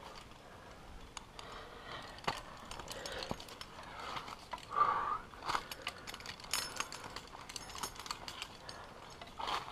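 Metal climbing gear on a harness rack clinking and clicking, with hands and shoes scuffing on rock, in a scatter of short irregular clicks.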